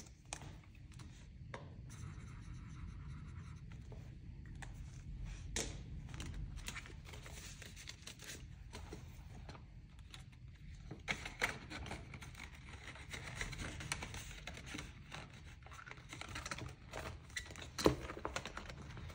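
Paper banknotes and plastic binder pages and sleeves rustling and crinkling as they are handled, with scattered small clicks and taps, and a sharper tap near the end.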